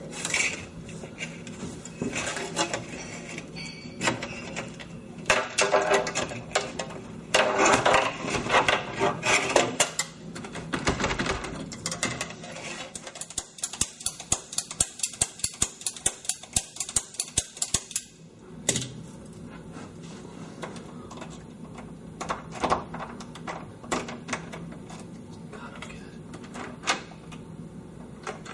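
Metal locksmith's tools clicking and scraping in a door lock as it is picked open, with a fast run of rapid clicks in the middle.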